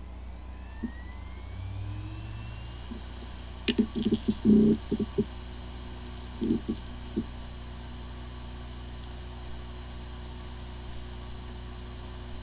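Hard drive powering up: a rising whine as the platters spin up, a cluster of clicks and knocks about four seconds in and a few more near the middle, then a steady spinning hum. The drive spins fine but cannot be accessed, the symptom of disk firmware corruption.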